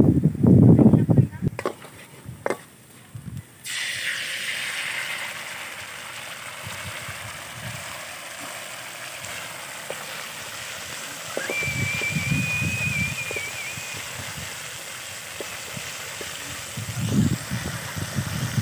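Red sauce hitting a hot steel wok of frying garlic: a sudden sizzle starts a few seconds in and settles into a steady sizzle while it is stirred with a wooden spatula.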